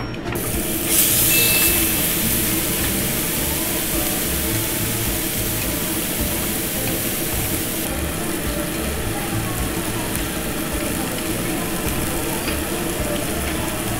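Marinated beef slices sizzling on a hot Korean barbecue grill plate: a steady hiss that swells about a second in, then holds.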